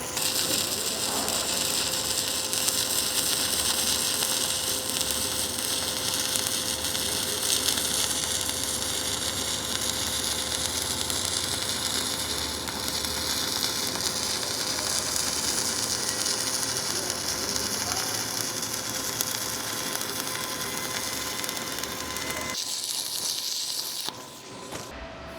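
Stick (shielded metal arc) welding with a 3/32-inch E309L-16 stainless steel electrode at 80 amps DCEP: the arc crackles and sizzles steadily, then cuts off near the end.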